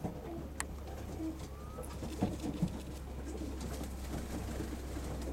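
Domestic pigeons cooing, with a few sharp clicks over a steady low rumble.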